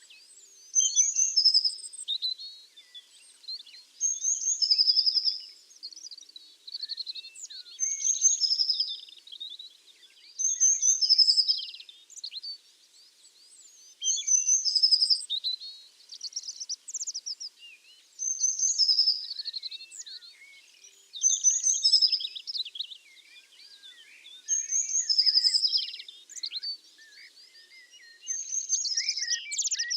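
A songbird singing the same short phrase over and over, each lasting about a second and a half and repeating every three to four seconds, with fainter chirps in between.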